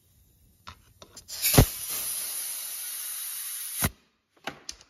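Compressed air hissing through an air chuck pressed onto an ATV tyre's valve stem, inflating the tyre. It opens with a sharp click, hisses steadily for about two seconds, and cuts off with a pop, followed by a few small clicks.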